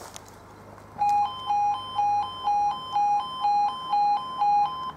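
Level crossing warning alarm starting about a second in: a loud electronic two-tone warble stepping back and forth between two pitches about twice a second. It signals that the barriers are about to lower for an approaching train.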